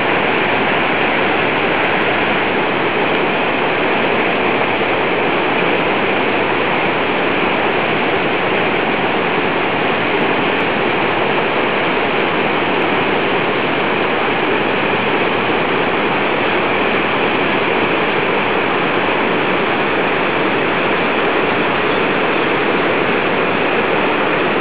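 Mountain torrent, the Pellice, its water rushing in a steady, unbroken roar.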